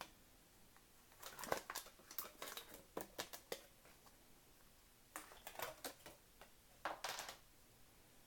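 Faint rustling and light clicks of packaging being handled as the impact driver is unwrapped, in three short clusters: about a second in, around five seconds, and near seven seconds.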